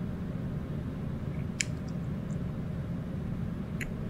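Marker writing on a whiteboard, with two brief high squeaks of the tip about two seconds apart over a steady low room hum.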